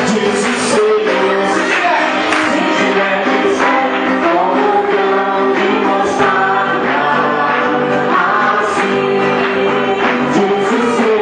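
Live gospel song: a man singing into a microphone over strummed acoustic guitar.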